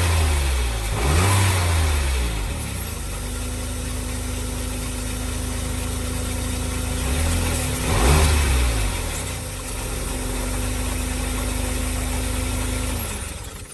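Smart Fortwo's three-cylinder petrol engine idling, with the revs blipped up and back down about a second in and again about eight seconds in, then stopping near the end. It is running on all three cylinders, new spark plugs and HT leads having cured a misfire on cylinder 3.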